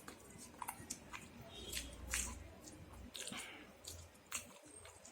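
Close-miked chewing and mouth sounds of someone eating curry: a string of short wet clicks and smacks.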